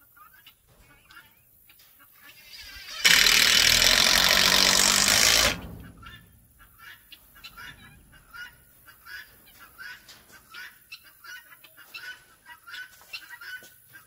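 A cordless drill runs at full speed for about two and a half seconds, starting and stopping abruptly about three seconds in; it is the loudest sound. Chickens cluck and call in short bursts throughout.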